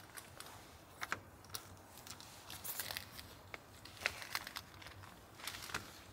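Quilted insulated window cover being handled and fitted over a van window: irregular crinkly rustling and small clicks, the sharpest about a second in, near four seconds and just before six seconds.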